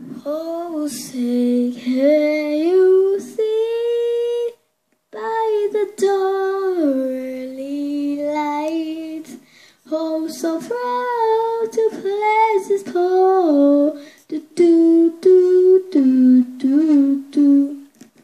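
A girl singing a pop melody without accompaniment, holding long notes and sliding between them, with short breaks for breath about four and a half and nine and a half seconds in.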